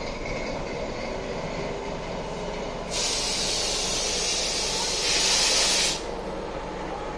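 Class T478.3 'Brejlovec' diesel locomotive idling with a steady rumble, while a loud hiss of escaping compressed air starts about three seconds in, grows louder and cuts off suddenly about a second later.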